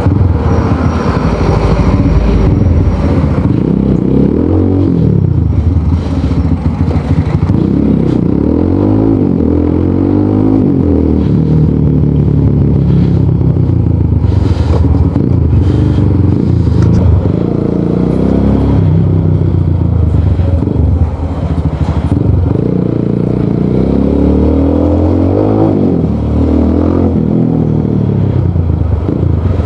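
Rusi Sigma 250 motorcycle running on the road through an aftermarket LeoVince muffler. Its exhaust note rises and falls in pitch again and again as the bike accelerates and shifts.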